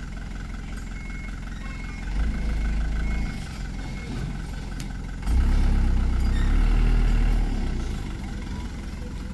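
Small cab-over flatbed truck's engine running as the truck manoeuvres. It picks up twice under throttle, briefly about two seconds in and for about two seconds from the middle, then drops back to a steady idle.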